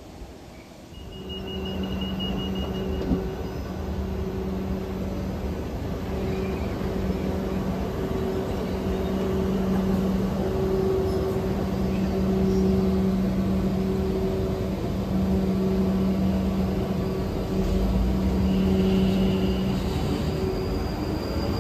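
South Western Railway electric multiple-unit train running along the platform. Wheel-on-rail rumble and a steady low electric hum, growing loud about a second in, with a brief high tone near the start and again near the end.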